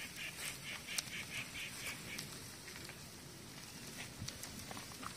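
Open wood fire crackling under spit-roasting chickens, with scattered sharp pops. Over it, during the first two seconds, an animal calls a quick run of repeated notes, about four a second.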